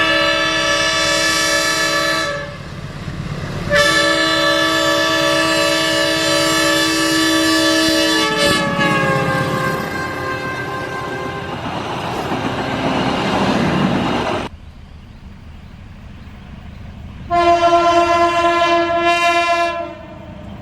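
CC201 diesel-electric locomotive air horns (S35) sounding a chord of several notes: a long blast, a short break, then another long blast that drops in pitch as the locomotive passes, followed by the rumble of the train going by. After an abrupt change, another horn gives a blast of about three seconds near the end.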